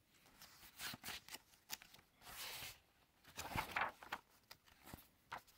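Pages of a large hardback book being flipped by hand: a run of faint paper rustles and flicks, the loudest swish about three and a half seconds in.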